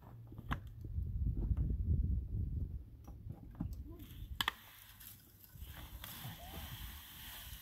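A plastic bucket knocking against a wooden pallet fence as it is lifted, then tipped so its contents pour out over the fence, with a low rumble for the first few seconds and a sharp knock about halfway through.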